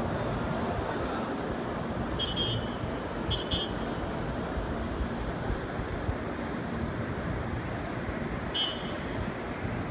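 Steady outdoor din of a large crowd in the street below, heard from high above, with a few short high-pitched tones, like whistles or beeps, about two, three and a half, and eight and a half seconds in.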